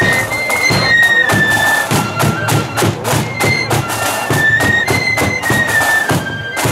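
Marching flute band playing: a high flute melody over the regular beat of bass and side drums.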